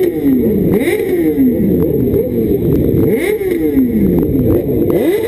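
Sport motorcycle engines revving in a crowd, several blips of the throttle in turn: each one rises quickly in pitch and falls back more slowly, with a few sharp clicks in between.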